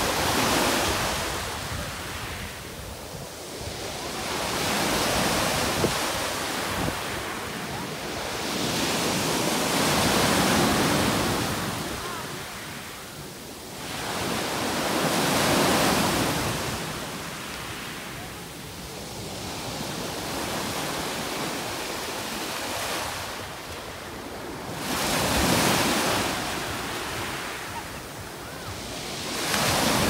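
Small Black Sea waves washing onto a beach, the surf swelling and falling back in surges about every five seconds.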